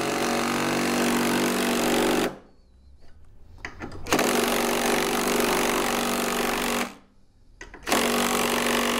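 Power driver running in three bursts as it drives a 3/8-inch lag screw home into the end of a wooden block: a run of about two seconds, a pause, a longer run of about three seconds from about four seconds in, and a last run from about eight seconds in.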